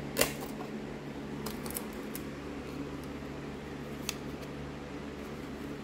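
Small plastic bead container from a 1998 Barbie bead kit being handled and its snap lid opened, with a sharp plastic click about a quarter second in, then a few faint clicks and taps over a steady low hum.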